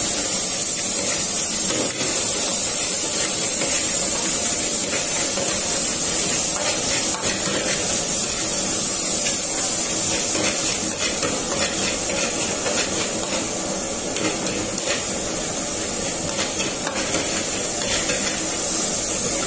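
Minced garlic and onion frying in oil in a steel wok, a steady loud sizzle, with a metal ladle scraping and clinking against the wok as it stirs.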